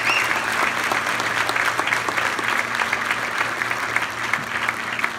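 Audience applauding, with a brief whistle at the very start; the clapping thins out slowly toward the end.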